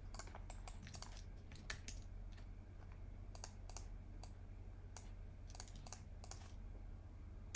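Computer keyboard typing: an irregular run of light key clicks, over a faint steady low hum.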